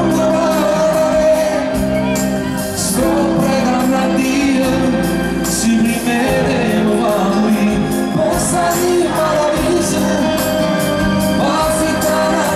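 Live pop music: a male voice sings a held, sliding melody into a microphone over band accompaniment, with cymbal-like strokes throughout.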